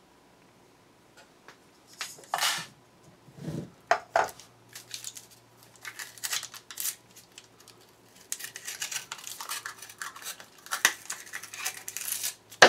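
Cardboard firework canister shell being cut and pulled apart by hand: irregular scraping, tearing and clicking, sparse at first and busiest in the last few seconds.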